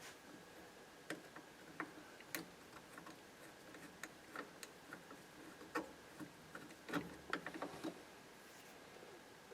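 Light, scattered metallic clicks and taps of small 1955 Chevrolet steering column parts being handled and pulled apart, with a quick run of clicks about seven seconds in.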